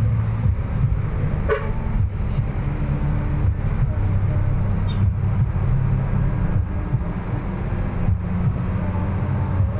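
A moving road vehicle heard from inside its cabin: a steady low engine drone and road rumble.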